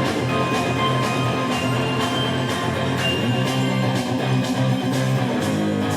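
Electronic rock band playing live: guitar and sustained keyboard notes over a steady drum beat.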